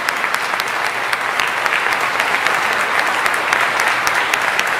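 Audience applauding steadily: many hands clapping at once in a large hall.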